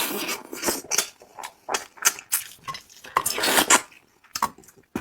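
Utensils clinking and scraping against dishes in irregular sharp clicks and short scrapes, busiest about three seconds in.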